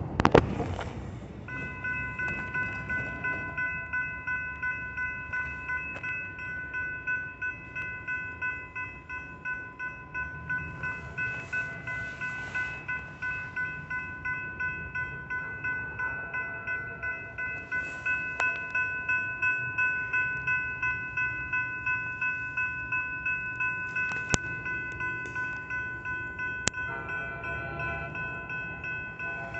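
Railroad crossing warning bell starting to ring about a second and a half in, then ringing steadily at roughly two to three strokes a second: the crossing has activated for an approaching train. A truck passes loudly at the very start.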